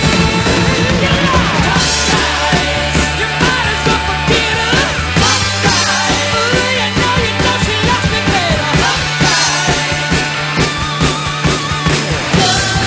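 Rock music: a full band backing track with a drum kit played along to it at a steady beat.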